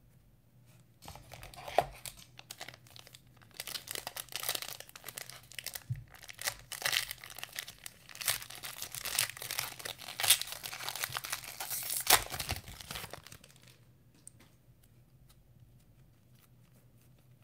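Foil wrapper of a Panini Mosaic basketball card pack being torn open and crinkled by hand, a long run of crackling and tearing with a few sharp snaps. It stops a few seconds before the end.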